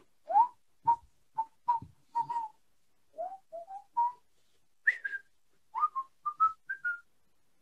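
A man whistling a tune of short, clipped notes, the later notes pitched higher than the first ones; the tune stops about seven seconds in.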